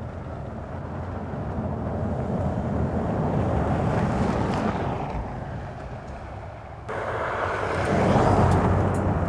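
2022 Toyota Tundra pickup with a twin-turbo V6 driving past on a gravel road, engine and tyre noise swelling as it passes about four seconds in and then fading. About seven seconds in the sound cuts abruptly to a louder stretch of the same truck running on gravel.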